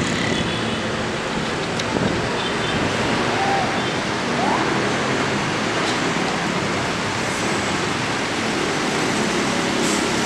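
Coach bus driving slowly past at close range: its engine runs steadily under a continuous rush of noise.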